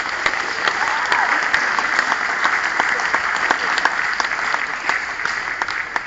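Audience of students applauding: dense, steady clapping that eases slightly near the end.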